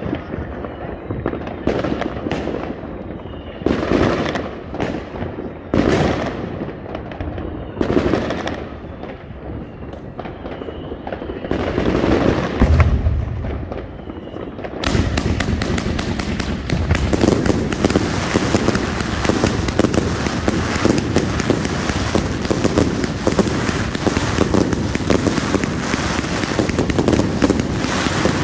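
Separate firework bangs a second or two apart, then about halfway through a Jorge JW 4013 Z-shape firework cake starts firing: a dense, rapid run of shots and crackles that keeps going without a break.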